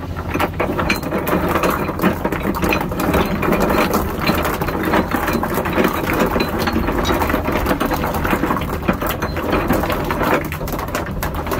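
Hyundai HX220AL excavator at work, its engine running steadily under a continuous rattling clatter of riprap stone against steel as the rock is carried and placed.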